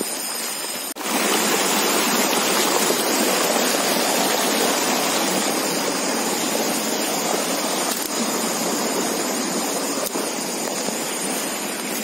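Steady rushing of a shallow, rocky stream flowing over stones. It gets a little louder after a click about a second in.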